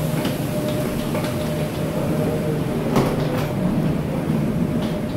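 Steady machinery hum of a parked airliner at the gate, with one thin steady tone above it and scattered clicks and knocks of passengers disembarking; the sharpest knock comes about three seconds in.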